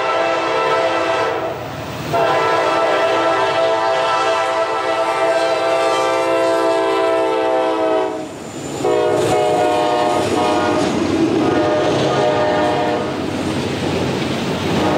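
Norfolk Southern diesel locomotive's multi-chime air horn sounding three long blasts as the train passes close by; the last blast is slightly lower in pitch as the lead locomotive goes past. Toward the end the locomotives' engines and the rumble of the freight cars on the rails take over.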